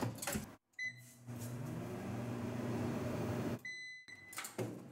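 Microwave oven door clicking shut, then a beep as it starts and a steady hum while it heats for a couple of seconds. A longer beep marks the end of the cycle, followed by clicks as the door latch is opened.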